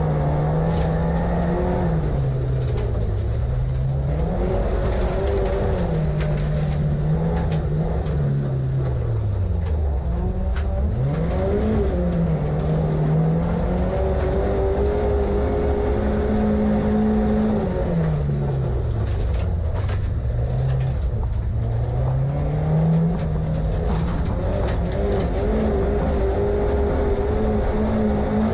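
Rear-wheel-drive race car's engine heard from inside the cabin, revved hard down the straights and dropping away on lifts and downshifts into the corners, so its note climbs and falls over and over, lowest about ten and twenty seconds in. Short knocks and clatters from the loose gravel surface come through now and then.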